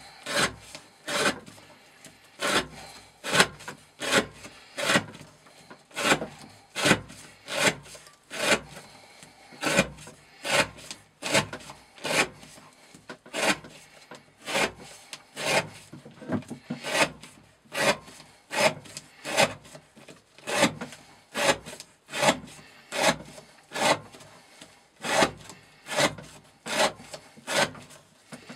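A Glock FM 78 knife's steel blade, with a 30° V edge, shaving curls off a wooden stick in steady repeated strokes, about three cuts every two seconds. The strokes are a count of cuts testing how long the edge stays sharp.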